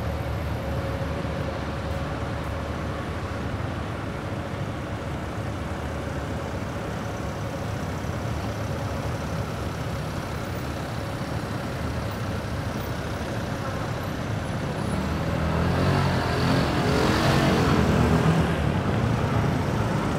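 Steady city street traffic with engines running. About three-quarters of the way in, one motor vehicle passes close, louder for a few seconds with its engine note shifting in pitch, then fades.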